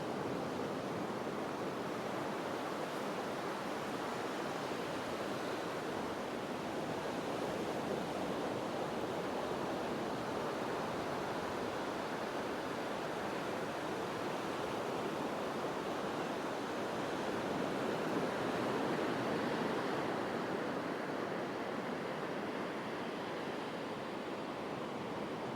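Ocean surf washing onto the beach, a steady rush that swells a little about two-thirds of the way through.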